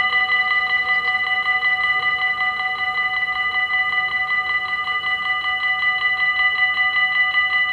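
Electric level-crossing warning bells of an automatic half-barrier crossing, ringing continuously in rapid, even strokes with a bright metallic ring, while the barriers lower for an approaching train.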